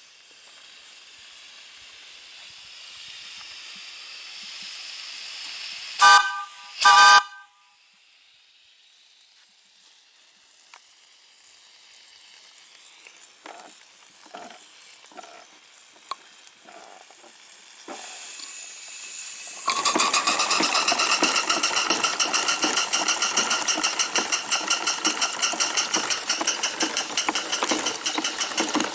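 Small steam plant of a propane-fired vertical boiler: steam hissing, then two short toots of the steam whistle a second apart, then scattered soft puffs. About two-thirds of the way through the small steam engine runs up to speed with a fast, steady exhaust chuff that stays loud.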